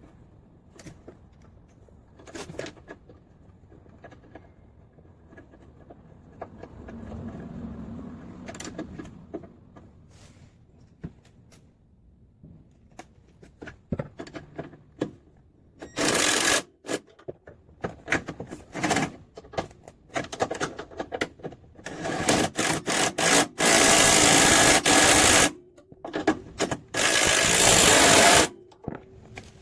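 A power tool runs in loud bursts of a second or two, with rapid mechanical clicking between them and two longer runs near the end, as bolts on the engine mount are worked. Before that there are scattered tool clicks and handling knocks.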